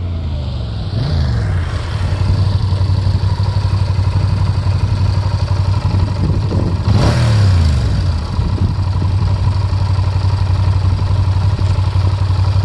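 Yamaha TRX 850's 270-degree parallel-twin engine, on its stock exhaust, dropping in pitch as the motorcycle slows and pulls up close by, then idling steadily at its raised idle of about 1500 rpm. About seven seconds in, the throttle is blipped once: a short rev that rises and falls back to idle.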